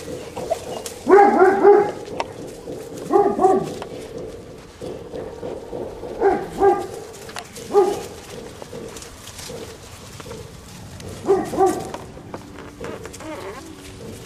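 Puppy barking in short, high yaps, in about five bouts of two or three barks spread a few seconds apart.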